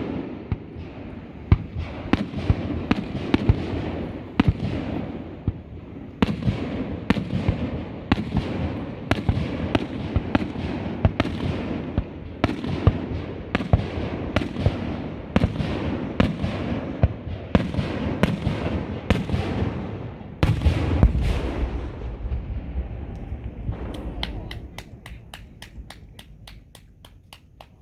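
Fireworks going off: a quick succession of shell bursts, each followed by a rumbling echo, with a heavier low boom a little past the two-thirds mark. Near the end it gives way to a fast run of small crackling pops, about four or five a second, that fades out.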